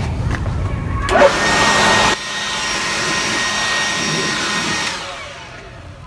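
Ryobi leaf blower blowing sawdust out of a plywood cabinet: after a second of low rumble it starts abruptly about a second in, runs loud and steady with a thin whine over the rushing air, then cuts off near the end and winds down.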